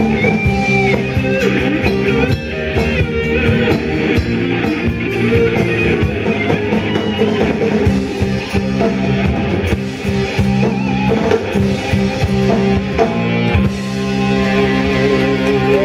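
Background instrumental rock music led by guitar, with sustained and bending notes over a continuous backing.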